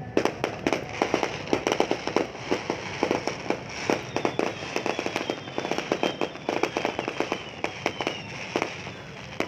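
New Year fireworks going off in a rapid, dense string of sharp cracks and bangs, several a second, with a faint falling whistle through the second half.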